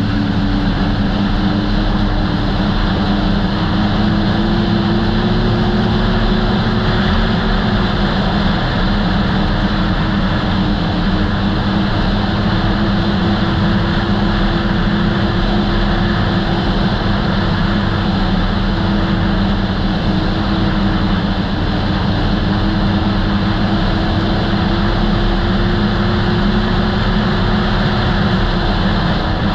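2008 Polaris Dragon Turbo snowmobile's four-stroke turbocharged engine running at a steady trail cruise, its pitch drifting gently up and down with the throttle, over a constant rushing noise. The engine note rises slightly for a few seconds and drops back about eight seconds in.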